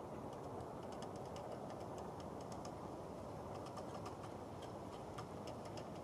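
Forest ambience: a steady low rushing noise with scattered short, high-pitched ticks and chips, some coming in small quick runs.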